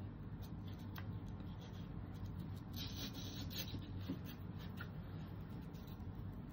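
Faint rustling and light clicks of artificial lemon picks, with their plastic stems and leaves, being handled and pressed onto a wooden truck cutout, over a low steady hum.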